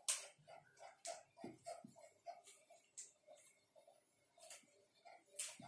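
Whiteboard marker writing on a whiteboard: a run of faint short squeaks and taps, one per pen stroke, a few each second, with a sharper tap just after the start and another near the end.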